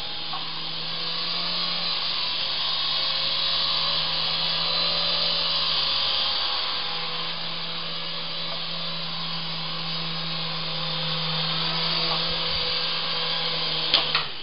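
Syma S109 mini R/C helicopter in flight: its small electric motors and coaxial rotors give a steady whine that swells and eases as it moves about. Near the end, two sharp knocks as it bumps the wall.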